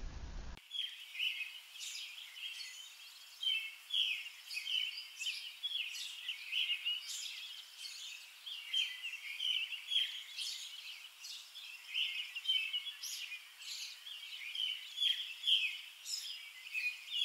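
Songbirds chirping and singing in short, quick phrases, starting about half a second in.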